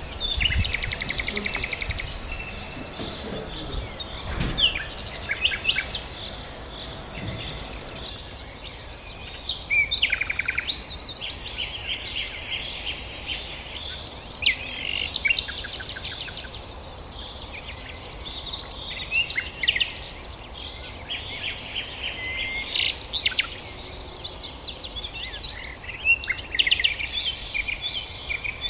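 Several birds chirping and singing at once: overlapping quick chirps and fast, evenly spaced trills, over a steady background hiss.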